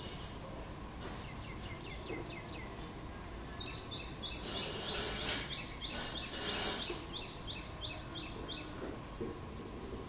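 A bird calling: a fast series of short, high notes that each slide downward, about three a second, from about two seconds in until near the end. Two bursts of loud high hiss come in the middle.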